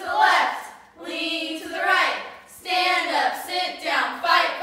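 Several girls' voices chanting a cheer in unison, a rhythmic pattern of short phrases repeated over and over.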